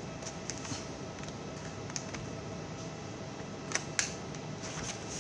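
Light plastic clicks and taps from handling a laptop keyboard, with two sharper clicks in quick succession about four seconds in, over a steady background hum.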